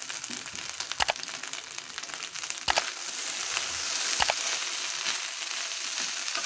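Fried rice sizzling in a hot metal kadai while a wooden spatula stirs and tosses it. Three sharp knocks of the spatula against the pan come about a second in, near three seconds and just after four seconds.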